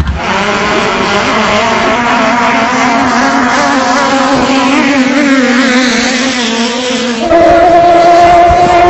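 Engines of turbocharged racing longtail boats running flat out at high revs, the note wavering slightly as a boat speeds by. About seven seconds in, the sound cuts abruptly to a louder, steadier, higher-pitched engine note.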